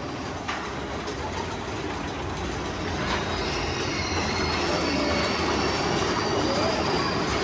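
Mine-train roller coaster running on its track: a steady rumble and rattle of wheels on rail with a faint high wheel squeal, slowly getting louder.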